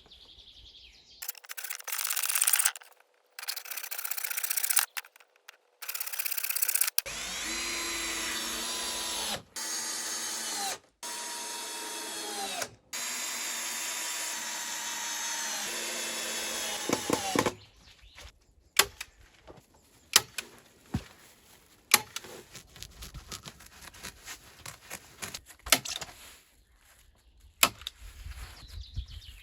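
Power drill working wood: several short noisy bursts, then long steady motor runs whose pitch shifts as the load changes. In the last third these give way to scattered sharp knocks and taps on wood.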